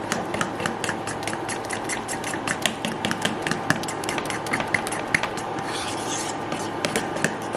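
Battered mini corn dogs deep-frying in hot oil: a steady sizzle with many sharp, irregular pops and crackles.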